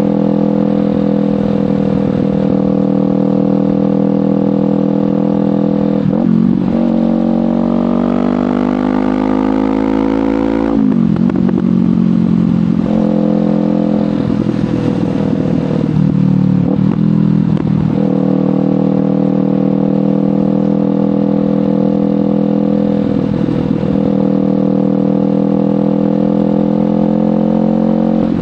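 Kawasaki Ninja 500 parallel-twin engine with a LeoVince GP Corsa Evo exhaust under way. It runs steadily, then from about six seconds in the engine note rises for a few seconds before cutting back sharply. After that come several brief breaks in the note, and it settles back to a steady cruise.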